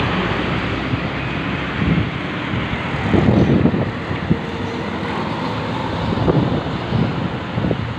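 Road traffic noise with wind buffeting the microphone, the gusts heaviest a few seconds in.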